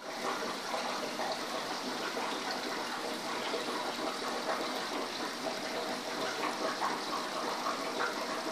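Steady rush of running water in a fish tank, with small quick flickers of splashing through it: the tank's filtration or aeration running.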